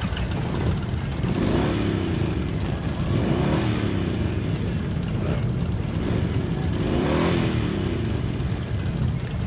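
Many motorcycle engines running together with a steady low rumble. Several engines rev up and back down: once about two seconds in, again around three to four seconds, and once more about seven seconds in.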